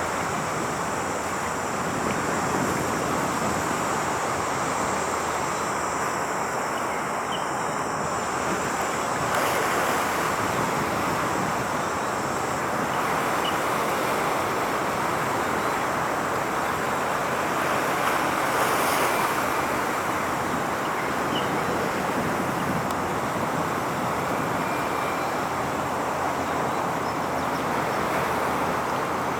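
Steady outdoor rushing noise with no distinct events, swelling slightly twice.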